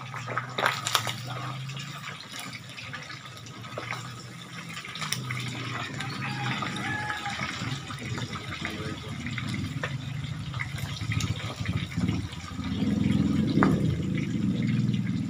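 Pork pieces deep-frying in hot oil, sizzling steadily with scattered sharp pops as the skin bursts and spits oil. A low hum runs underneath, growing louder near the end.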